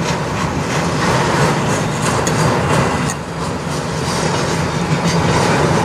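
Freight train of intermodal and autorack cars rolling past, steel wheels clicking and clattering over the rails, mixed with gusty blizzard wind.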